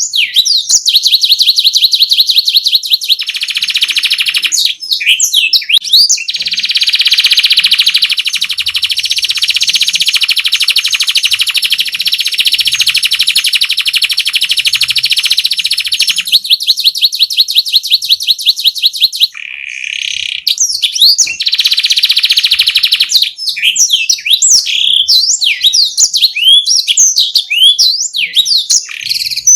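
Domestic canary singing rolling song: very rapid trills held for several seconds at a time, switching to slower pulsed trills and then to quick chirps and rising and falling whistled notes near the end.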